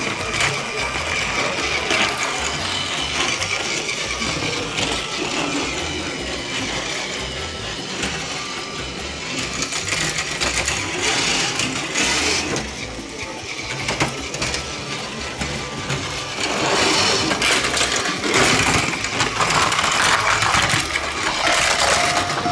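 Battery-powered Thomas toy train's small motor whirring as it runs along plastic track, with music playing over it.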